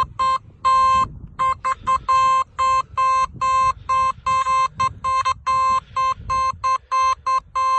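Nokta Makro Simplex metal detector beeping its target tone over and over as the coil sweeps a piece of tin: a quick, irregular string of short and longer beeps, all at one steady pitch. The tin reads 56 to 57, a tone and number that could also mean gold.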